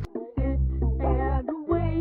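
A children's cartoon song, a sung melody over a steady bass line, played in two short phrases with a brief break about a second and a half in.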